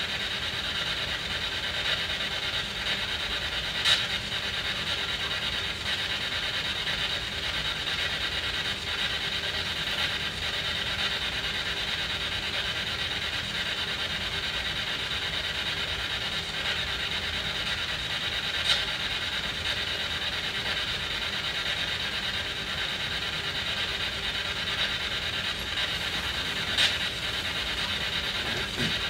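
SB7 spirit box sweeping through radio stations: a steady hiss of radio static with a few brief blips.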